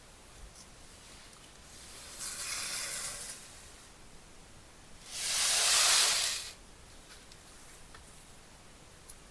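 Two hissing sprays: a softer one about two seconds in, then a louder one about five seconds in, each lasting about a second and a half.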